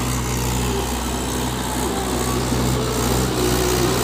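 Mahindra 575 DI tractor's four-cylinder diesel engine running steadily as it drives along a rough dirt track.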